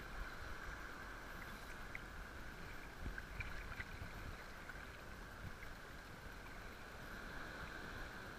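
Steady wash of wind and shallow surf water, with a few faint ticks.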